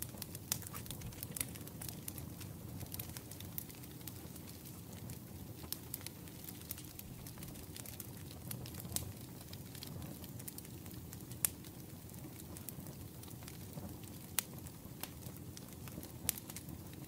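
Wood fire crackling: irregular sharp pops over a low steady rumble, with a louder pop now and then.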